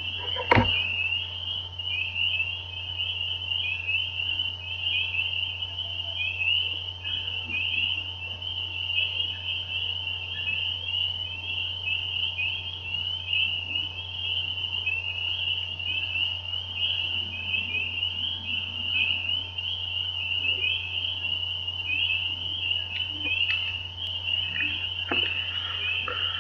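Breeding chorus of many frogs in a backyard lake, short high calls repeating and overlapping into a continuous shrill din. A steady low hum runs underneath, and a single click comes about half a second in.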